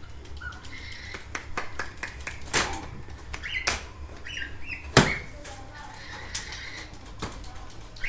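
Box cutter cutting the plastic packing straps and cardboard of a dishwasher carton, with a few sharp snaps and scrapes, the loudest about five seconds in.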